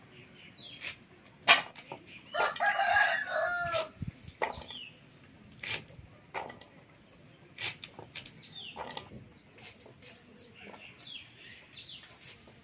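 A rooster crows once, about two seconds in, for a second and a half. Around it come sharp clicks of yardlong beans being sliced on a boti blade, and a few short high calls from the fowl.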